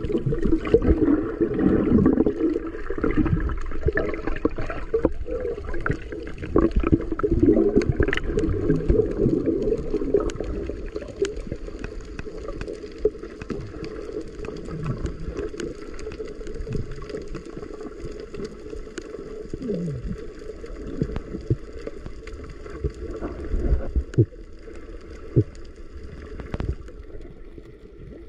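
Muffled underwater water noise picked up by a submerged camera: water rushing and gurgling, louder for the first ten seconds or so, then quieter, with a few scattered short knocks.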